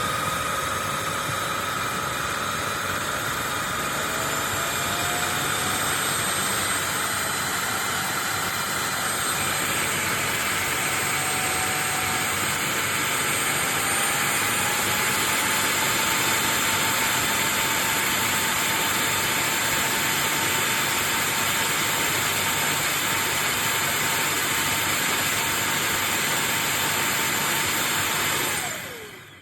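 Bissell CrossWave OmniForce cordless wet-dry vacuum running steadily with a high whine just after spinning up, then winding down near the end as it is switched off.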